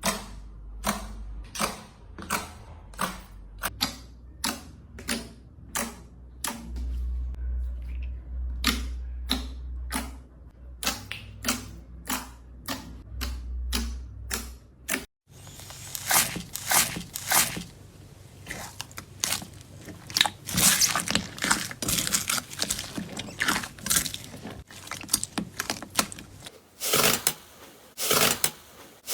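Slime being pressed and worked, giving sharp clicking pops about twice a second. After a cut about halfway through, a denser crackling and popping.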